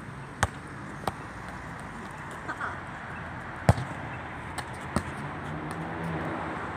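Several short, sharp knocks, the loudest a little past halfway, over a steady hum of city traffic that grows louder near the end.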